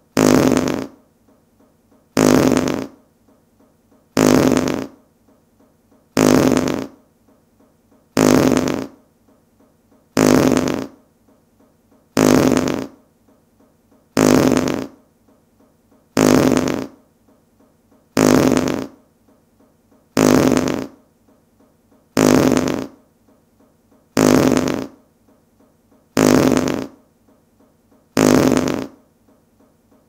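Fart sound effect: the same short fart, under a second long, repeated evenly about every two seconds.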